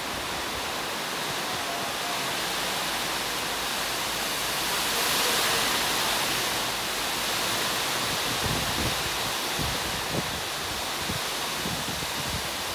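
Heavy rain pouring down in a steady hiss, heavier for a moment about five seconds in. In the second half, a few low gusts of wind rumble on the microphone.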